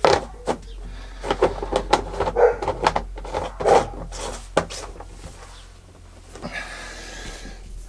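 Red plastic screw lid being twisted and pressed down onto a plastic fermenting bucket: a run of plastic clicks and knocks, then a brief hiss near the end.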